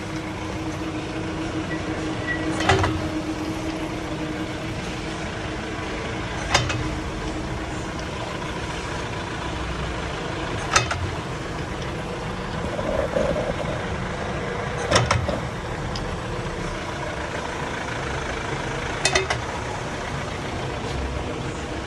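A 4x4 Jeep Compass/Renegade/Fiat Toro idling, with a sharp clunk from the rear differential about every four seconds, five in all. Each clunk is the jolt the vehicle gives in the rear differential when reverse is engaged.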